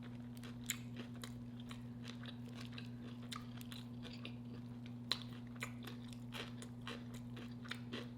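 Close-miked chewing of crunchy pickle: many irregular wet clicks and crunches from the mouth, over a steady low hum.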